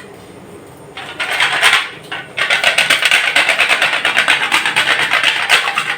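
Whole nutmeg being grated on a small metal grater: quick, even rasping strokes that start after a brief pause and keep up a steady rhythm.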